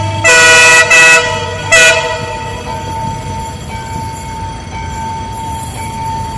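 Electric train's horn sounding three blasts: two in quick succession, then a short third about two seconds in. Afterwards the train carries on with a steady rumble and a held steady tone.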